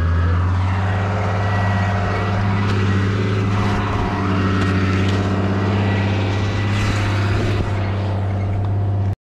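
Engine running at a steady speed, a constant low hum, which cuts off suddenly near the end.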